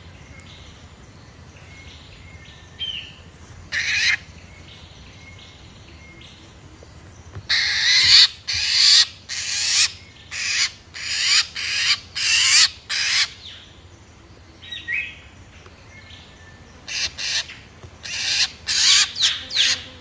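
A fledgling drongo held in the hand gives loud, harsh squawking calls while it is pulled free of birdlime: two single calls, then two runs of about two calls a second. Fainter bird chirps come in the gaps.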